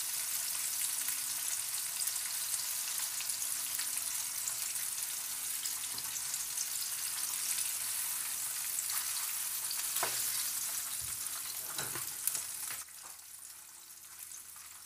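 Fried chicken strips sizzling in a hot honey and sweet chili glaze in a skillet as they are turned with a fork, with a couple of clicks of the fork on the pan. The sizzle falls away suddenly near the end.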